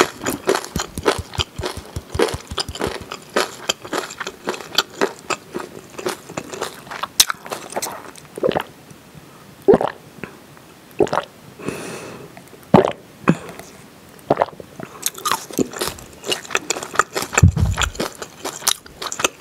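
Close-miked chewing of crunchy kimchi: dense crunches for the first several seconds, then slower, sparser bites. A little after ten seconds in comes a short sip through a straw, and near the end a low thump.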